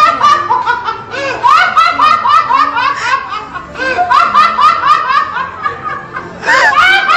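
A person laughing hard: long runs of quick, high 'ha-ha-ha' bursts, broken by a few short pauses.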